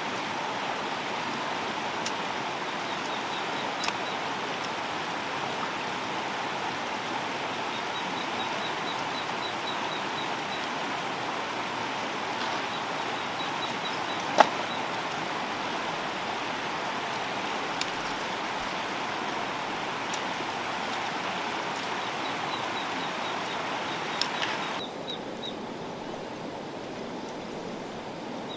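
Steady rushing of a high-running river, with a few scattered sharp knocks, the loudest about halfway through. The rushing drops away abruptly near the end.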